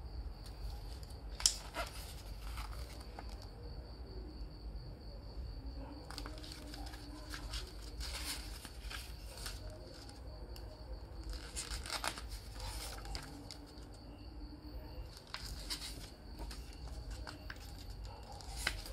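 Paper rustling and pages turning as a CD booklet is handled and leafed through, in clusters of crinkly rustles, with one sharp click a little over a second in.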